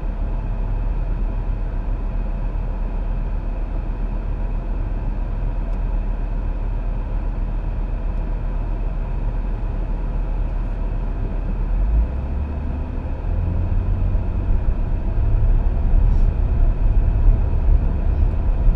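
Steady tyre and engine noise inside a car's cabin at highway speed, with the low rumble growing louder over the last several seconds.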